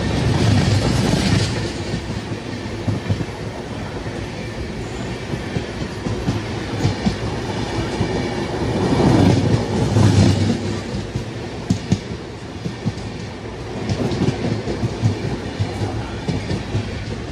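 Passenger train's coaches running past close by on the adjacent track: a steady rumble of wheels on rails with clickety-clack as the wheels cross rail joints, swelling louder near the start and again about halfway through.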